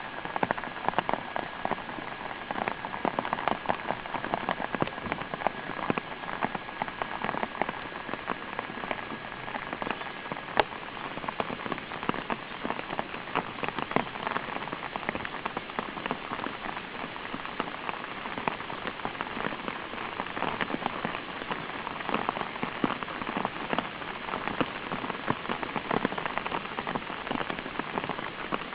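Steady dense patter of rain, many small drops ticking at once. A faint, high, steady tone underneath stops about ten seconds in.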